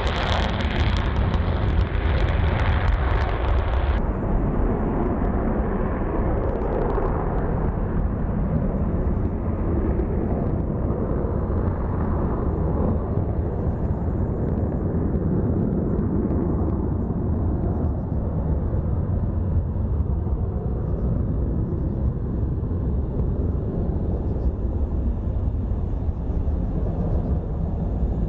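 Jet noise from A-10 Thunderbolt II aircraft and their twin TF34 turbofan engines, a steady low rumble across the airfield. For the first four seconds a bright rushing hiss rides on top, then cuts off abruptly, leaving the deeper, softer rumble.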